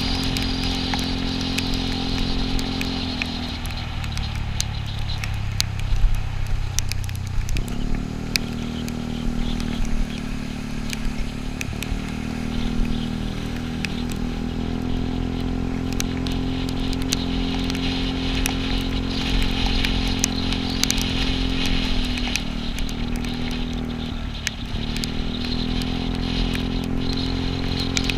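Yamaha Cygnus 125 cc single-cylinder scooter engine running while riding. Its pitch drops a few seconds in as the throttle eases, climbs again about seven seconds in, and dips briefly near the end, over a steady hiss of tyres on the wet road.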